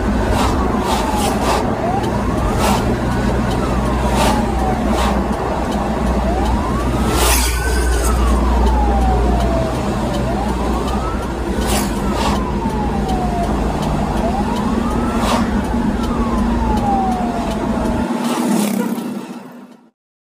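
Ambulance siren wailing in slow sweeps that rise and fall about every four seconds, heard from inside the cab over the ambulance's steady engine and road noise, with occasional clicks. It all fades out near the end.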